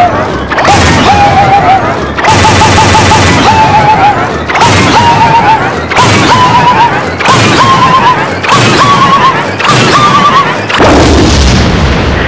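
Edited cartoon soundtrack: a short clip of a wavering, wailing cry over a noisy crash, looped about every 1.3 s, each repeat pitched a little higher. Near the end the loop gives way to a louder crash without the cry.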